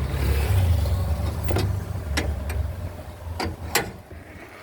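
Low rumble of a motor vehicle passing on the street, fading away after about two and a half seconds, with a few sharp clicks or knocks near the end.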